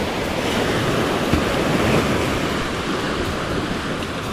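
Ocean surf breaking and washing up the sand in a steady wash, with wind buffeting the microphone.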